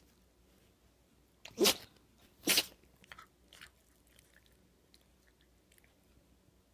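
A dog sneezing twice, a little under a second apart, part of a sneezing fit that the owner puts down to allergies.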